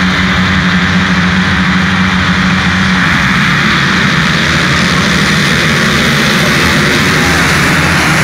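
A full field of motocross bikes held revving on the start line. About three seconds in they all launch at once, and the sound becomes a dense, loud, rising mass of engines accelerating away.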